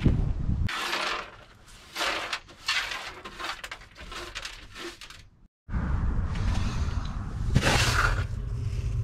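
Hand brush sweeping grit and small debris across a van's bare metal floor in a series of short scraping strokes. A steady low rumble comes in after a cut, with one louder scrape of debris near the end.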